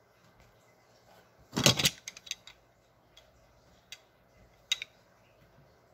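Two hard plastic pieces being picked up and knocked together: a short burst of clattering clicks about a second and a half in, then a few single sharp clicks.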